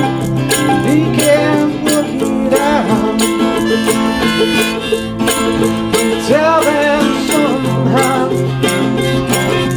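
Live acoustic music: an acoustic guitar and a small mandolin-like instrument strummed together in a steady rhythm, with a man singing over them.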